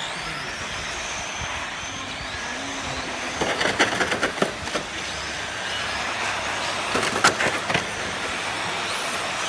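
Electric radio-controlled model trucks racing on an asphalt track: motors whining with steady tyre noise, and two clusters of sharp clicks and knocks, about four and about seven seconds in.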